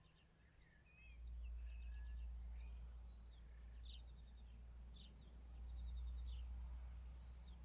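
Birds singing: repeated short downward-slurring notes and quick trilled phrases. Under them, a low rumble swells up about a second in and stays.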